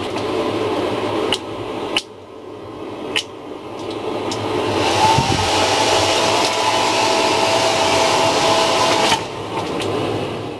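Handheld hair dryer blowing: a steady rush of air with a motor whine. It dips sharply about two seconds in after a click, builds back up over the next few seconds to its loudest, and drops somewhat near the end.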